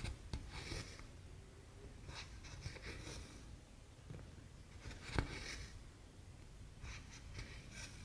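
Cross-stitch needle and floss being pulled through 14-count canvas: a soft scratchy swish about every two seconds as each stitch is drawn through, with one sharper click about five seconds in.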